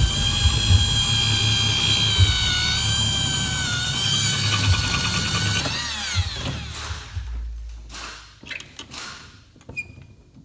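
A handheld power tool runs at a steady high whine, then is released about six seconds in and spins down with a falling pitch. A few light clicks and knocks follow.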